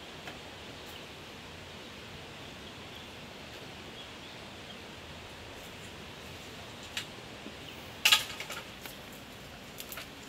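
A few sharp knocks and scuffs from rubber boots and gear on rock as a person climbs over boulders, the loudest cluster about eight seconds in. Under them runs a steady outdoor hiss.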